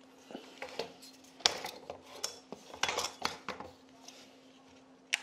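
Metal clicks and clinks from a folding camping-table frame being handled and its red locking clips fastened, a quick cluster of knocks in the middle and one sharp click near the end.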